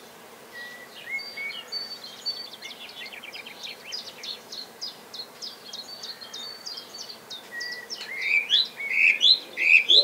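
Small garden songbirds singing: many quick, overlapping high chirps and trills, with louder, lower notes in the last couple of seconds.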